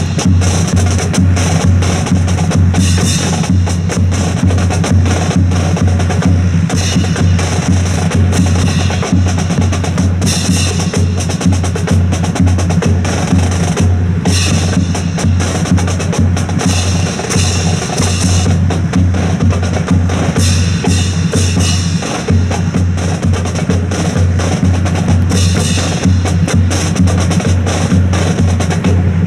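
Loud rhythmic percussion: a steady pulsing drumbeat with dense, sharp wood-block-like clacks over it.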